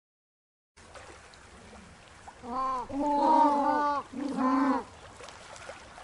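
King penguins calling: after a second of silence, a faint colony hiss, then several loud calls from about two and a half seconds in to nearly five seconds, each call's pitch rising and falling.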